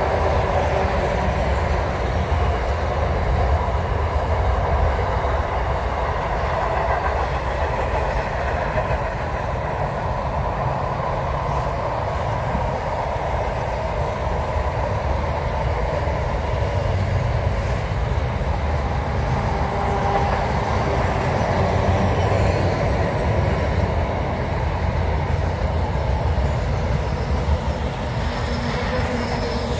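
Container wagons of a long freight train rolling past: a steady rumble of steel wheels on rail.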